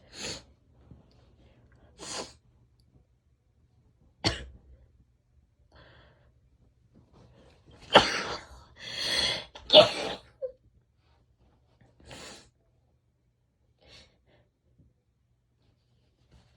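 A woman sneezing and coughing in a string of short bursts with quiet breaths between them. The loudest two come about eight and ten seconds in.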